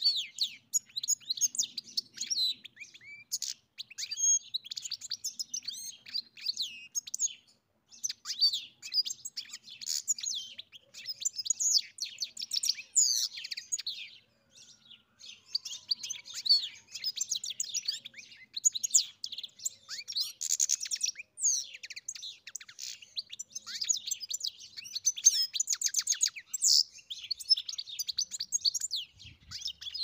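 European goldfinch singing: long runs of fast, liquid twittering and tinkling notes, broken by short pauses about a quarter and half of the way through.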